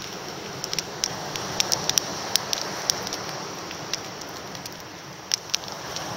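Campfire crackling: a steady hiss with many irregular sharp pops as the burning wood throws sparks.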